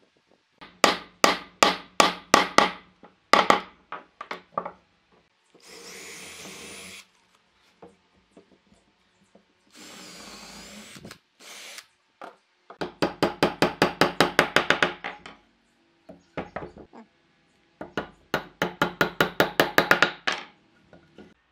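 A claw hammer striking wooden parts in several quick runs of blows, the later runs fast at several blows a second. Between them a cordless drill runs twice for about a second each, boring into the wood.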